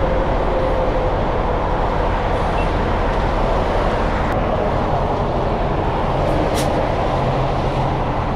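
Semi truck's diesel engine and road noise heard from inside the cab while driving: a steady drone with a low hum.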